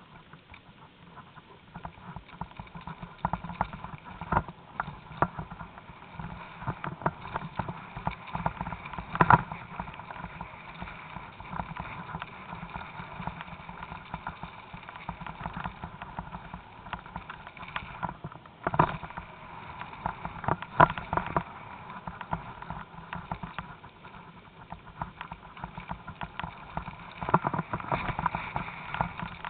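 Mountain bike riding downhill on a rough dirt trail: tyres running over dirt and stones, with constant rattling and knocking of the bike and on-board camera over the bumps. A few harder jolts stand out, the loudest about nine seconds in.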